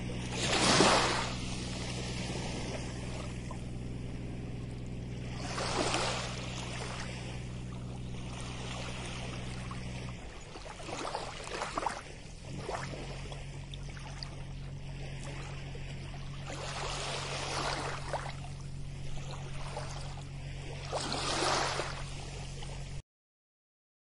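Small waves washing onto a sandy beach, swelling and receding every few seconds, over a steady low hum that changes pitch about ten seconds in. All of it cuts off suddenly about a second before the end.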